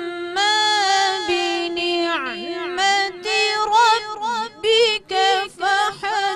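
A woman reciting the Quran in melodic tajweed style, with long held, ornamented notes that give way to shorter phrases with brief breaths near the end.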